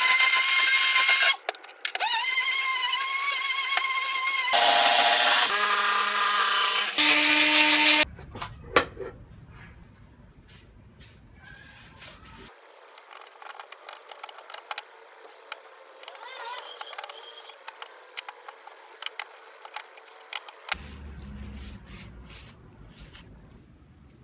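Electric power tools running with a steady high whine in several short, abruptly cut bursts. These give way after about eight seconds to quieter scattered clicks and knocks of handwork on wood.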